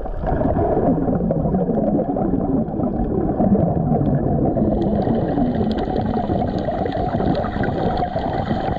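Muffled underwater sound, as heard by a submerged camera: a steady low rumble of moving water with gurgling.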